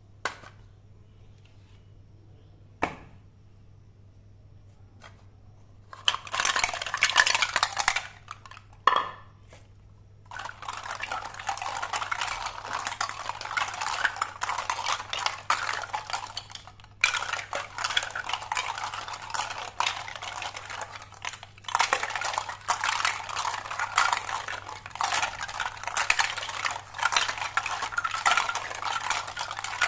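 A few isolated knocks, then from about six seconds in, continuous splashing and clattering as plastic toy fruits are rubbed and stirred by hand in a plastic basin of water.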